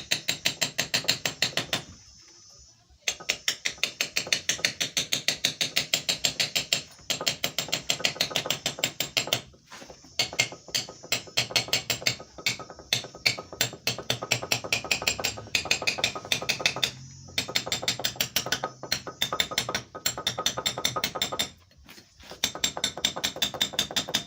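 Power demolition hammer breaking up concrete masonry, hammering in rapid, even blows in runs of several seconds with short pauses between.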